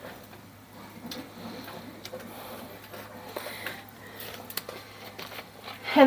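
Wooden spoon stirring thick melted candy syrup in a pot, with scattered soft scrapes and light taps against the pot.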